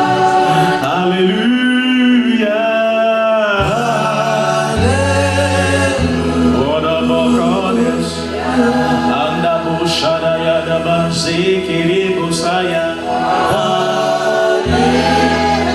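Worship singers singing a slow gospel worship song in long held notes, over sustained low accompaniment chords.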